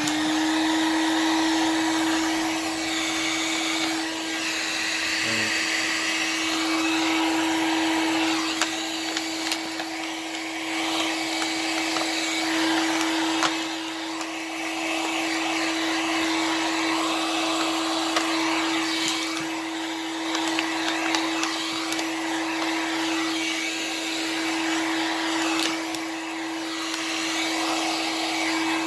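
Electric heat gun running: a steady hum from its fan motor under a rush of hot air. It comes up to speed at the start and winds down at the very end. It is shrinking clear heat-shrink tubing over an 18650 lithium battery pack.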